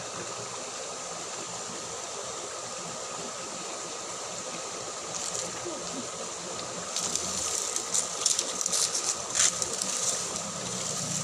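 Steady hiss of flowing ditch water, with a few seconds of sharp crackling and rustling starting about seven seconds in.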